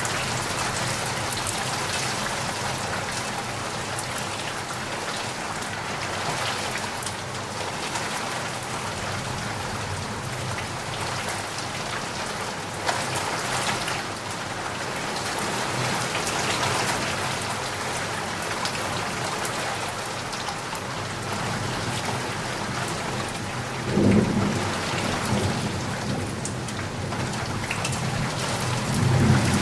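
Steady rain falling, with low rumbles of thunder about three-quarters of the way through and again near the end.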